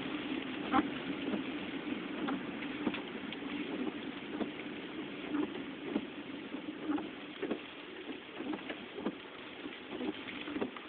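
Storm rain striking a car, heard from inside the cabin: a steady hum with scattered, irregular taps of drops on the body and glass.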